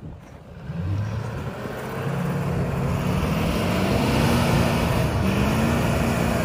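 Hummer H1's engine revving hard under load while towing a stuck SUV out of deep snow on a strap. The engine comes in about a second in and its pitch climbs and wavers as the revs rise and fall, staying loud to the end.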